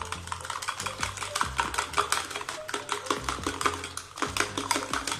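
A spoon beating eggs in a small plastic bowl: rapid clicking strokes against the bowl, over background music.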